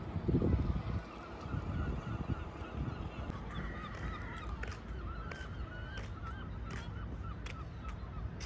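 Birds calling, a run of short wavering cries beginning a little under halfway in, over a steady low rumble.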